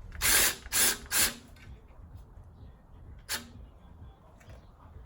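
3/8-inch Snap-on cordless ratchet running in three short bursts on a 13 mm alternator bolt, followed by a single sharp click about three seconds in.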